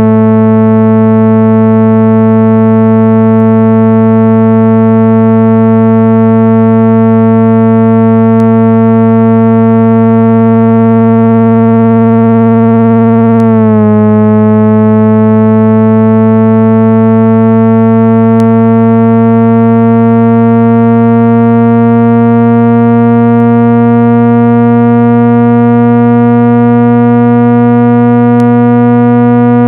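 Loud, steady synthesized speaker-cleaning tone with a stack of overtones, played to vibrate a phone speaker and shake water and dust out of it. About halfway through its pitch dips briefly, then creeps slowly upward.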